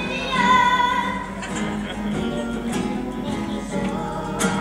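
A young boy singing a carnival presentación, accompanied by strummed Spanish guitars.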